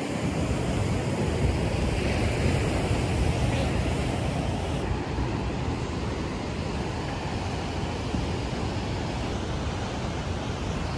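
Steady rush of ocean surf breaking on a rocky shoreline, mixed with wind buffeting the microphone.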